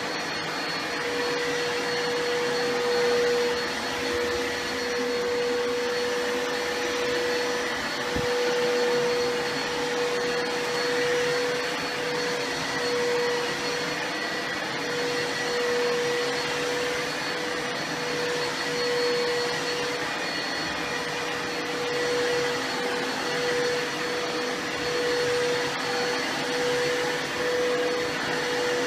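Vacuum cleaner motor running steadily, a constant whine over a rush of air, its loudness swelling and easing a little.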